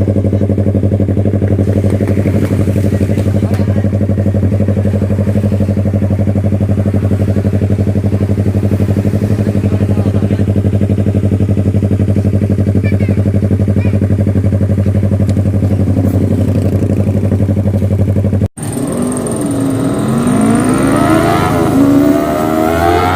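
Yamaha R3's 321cc parallel-twin engine idling steadily through an aftermarket Replica Pro open pipe. About eighteen seconds in the sound cuts off abruptly and gives way to a different sound whose pitch slides up and down.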